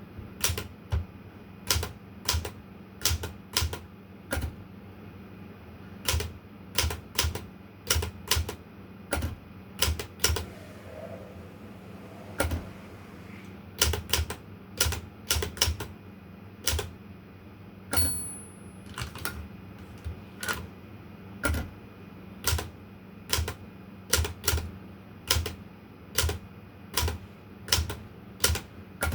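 Olympia Traveller de Luxe manual portable typewriter being typed on slowly: single sharp key strikes at an uneven pace, with a pause of about two seconds a third of the way through and one brief high ring partway along.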